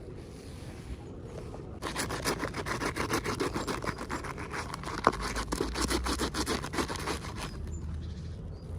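Rapid, dense scratching and rustling, as of toy packaging being handled and opened by hand. It starts about two seconds in, eases off near the end, and has one sharp click about five seconds in.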